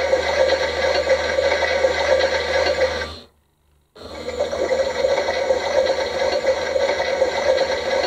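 Bosch toy washing machine's small battery-powered motor turning the drum with a steady whirr and rattle. It stops dead about three seconds in, then starts up again under a second later.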